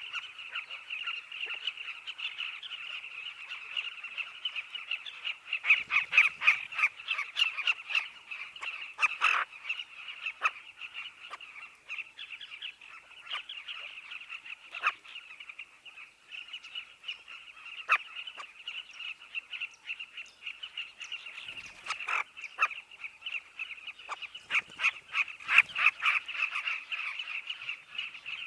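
Nesting colony of southern carmine bee-eaters calling: a dense, continuous chorus of chirps. Louder bursts of close calls come a few times, around a quarter of the way in and again near the end.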